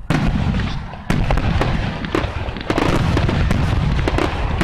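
Fireworks going off in quick succession: many sharp crackling bangs several a second over a continuous low rumble, getting louder about a second in.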